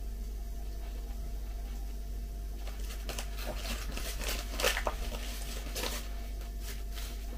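Translucent plastic candy wrapper being pulled open and crumpled by hand. It crinkles for about three seconds, starting about three seconds in and loudest in the middle.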